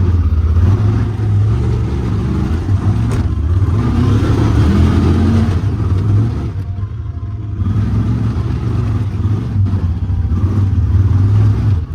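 Honda Talon side-by-side's parallel-twin engine running under throttle on a trail, easing off briefly about two-thirds of the way through, then pulling again.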